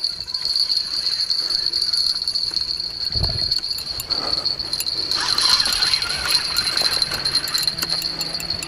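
A spinning reel's drag ticking and rattling as a hooked catfish pulls line against the rod during the fight. There is one dull thump about three seconds in.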